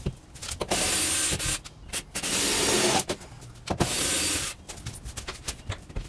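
Cordless drill running in several short bursts, each under a second, driving screws into a plywood wall; the bursts stop shortly before the end.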